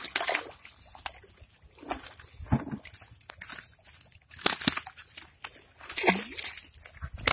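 River water sloshing and splashing in short separate bursts, every second or two.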